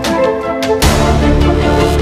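Background music: an instrumental track with a steady beat, where a heavier bass comes in a little under a second in.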